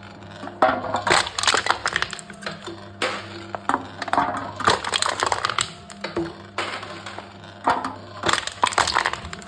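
Aluminium drink cans being crushed by a machine, crumpling and crackling in three bursts a few seconds apart.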